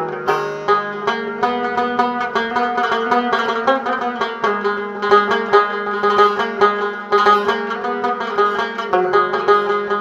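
Background music: a fast plucked-string melody over a steady sustained drone.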